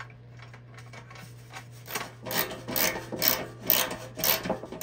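Rasping strokes of metal on the sheet-steel bread pan at the hinge, repeated about three times a second, starting about two seconds in.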